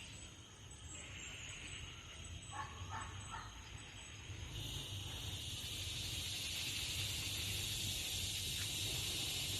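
Rural outdoor ambience: a steady high insect chorus that swells and grows louder about halfway through, with three short bird chirps about three seconds in and a low rumble underneath.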